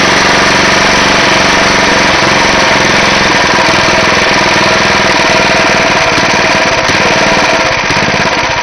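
The 8 hp Tecumseh single-cylinder engine of a Roto-Hoe chipper-shredder running loud and steady, with a fast, even firing pulse. It eases off slightly near the end.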